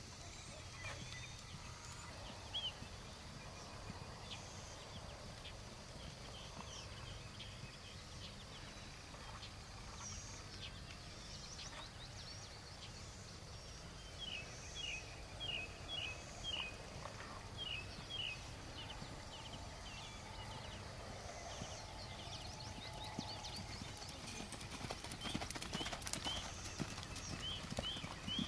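Hoofbeats of a large pony cantering on a sand arena, a steady stride rhythm of about one beat every three-quarters of a second that grows louder as the pony passes close about halfway through and again near the end as it comes into a fence.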